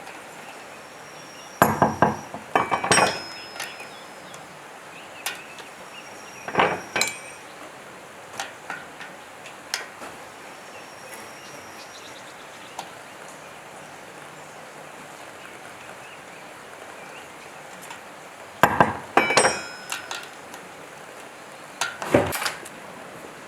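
Metal parts and tools clinking and knocking as a damaged generator is taken apart: four short bunches of sharp metallic clinks with brief ringing, and scattered single ticks between them.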